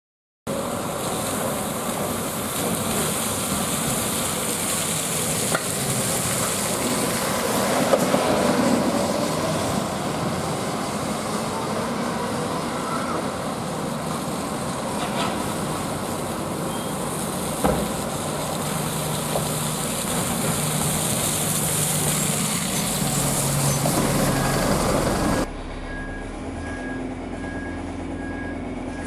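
Diesel buses running and pulling through a wet bus station, over a steady hiss of rain and tyres on the wet road, with an engine rising and falling around eight seconds in. Near the end it cuts to the inside of a bus: a lower steady engine hum and a high beep repeating about twice a second.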